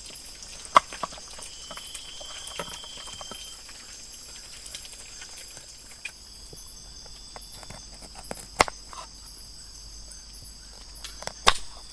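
Eggs frying in a pan, with a few sharp knocks of a utensil against the pan, about a second in, at two and a half seconds, and twice near the end. Under it runs a steady high drone of forest insects.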